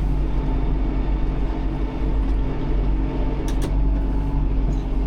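Tractor engine running steadily, heard from inside the tractor's cab, with two short clicks about three and a half seconds in.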